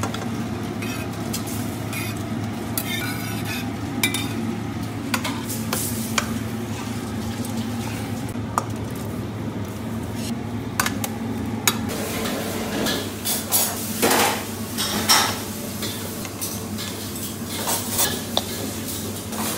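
Metal ladle stirring curry in a steel cooking pot: scattered sharp clinks and scrapes of metal on metal over a steady low hum, busier and louder for a few seconds past the middle.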